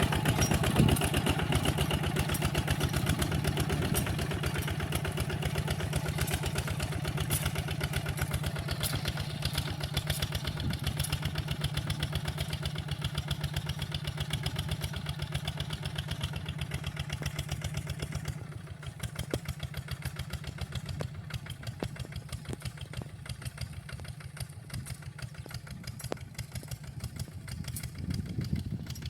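Walking tractor's engine running steadily with a fast, even putter while ploughing, growing quieter about two-thirds of the way through.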